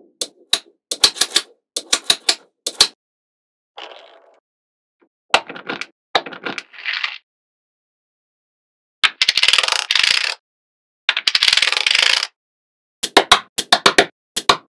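Small magnetic balls clicking together as they are snapped into place, in quick runs of sharp clicks, with two longer rattles of many balls at about nine and eleven seconds in.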